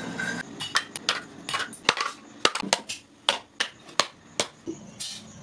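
A quick, irregular series of sharp clicks and knocks, about fifteen in five seconds, as hard objects strike or crack against one another.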